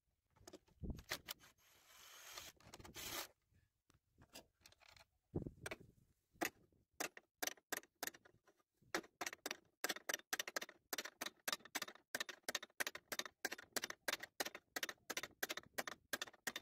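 Hand ratchet wrench clicking as a bolt on a front-end bracket is turned: scattered clicks and a short rustle at first, then a run of rapid, even clicks, about four or five a second, through the second half.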